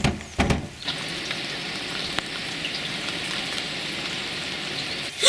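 Steady hiss of falling rain that sets in about a second in, after two or three dull thumps at the start.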